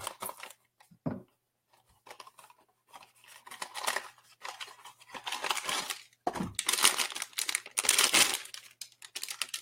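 Blind-box packaging being torn open and crinkled by hand, in rustling stretches that are loudest in the second half.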